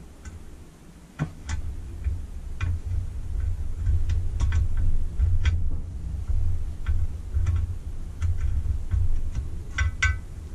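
Irregular small metallic clicks and taps of a screwdriver working against a valve spring and its keeper on a Lister D cylinder head, as the spring is forced down to seat the keeper, over a low rumble of pressing and handling.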